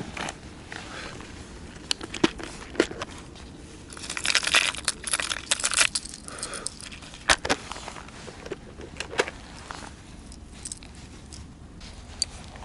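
Irregular small clicks, rattles and rustling from handling fishing tackle while changing to a walker lure, with a busier stretch of rattling and rustling about four seconds in.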